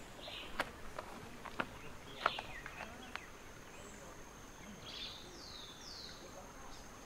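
Footsteps knocking on the weathered wooden sleepers of an old railway bridge, a few sharp knocks in the first three seconds. Birds call over it, with a pair of short falling whistles about five seconds in, above a steady high insect whine.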